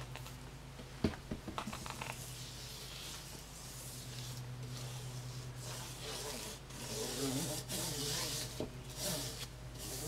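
Gloved fingers rubbing soapy water along the rubber bead of a new motorcycle rear tire, sprayed on from a spray bottle, which makes irregular rubbing and hissing noises. A sharp click about a second in, then a few smaller clicks.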